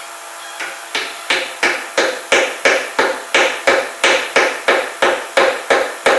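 A hammer striking steadily, about three blows a second, driving a Miller stepped wooden dowel into a drilled hole in the toolbox joint. The blows start about half a second in.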